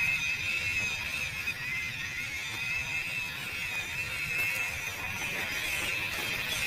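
1/12-scale MN99 Defender RC crawler's small electric motor and gearbox whining steadily as it drives, the pitch dipping briefly about a second and a half in, over a low rumble; a sharp click or crunch comes at the very end.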